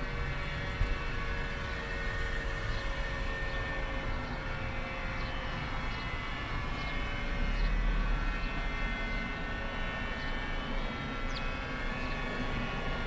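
Flood warning siren sounding a steady, sustained tone made of several pitches at once.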